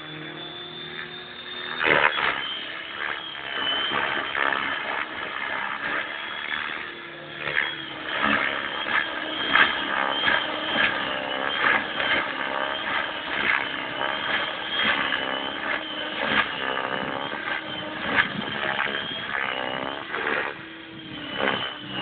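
Align T-Rex 600 RC helicopter flying 3D aerobatics. Its rotor and motor hold a steady pitch for about two seconds, then keep swinging up and down in pitch and loudness with repeated loud swells as it is thrown through manoeuvres.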